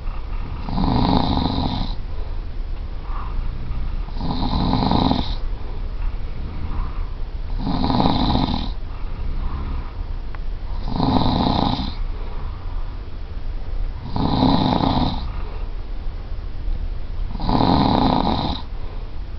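A person snoring heavily and regularly, one long snore about every three and a half seconds, six in all.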